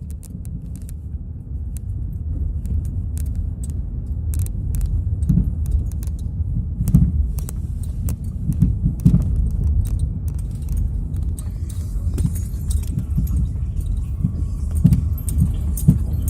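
Chevrolet Cruze being driven, with a steady low road rumble and repeated sharp knocks and rattles from the front suspension, the knock the car is being repaired for.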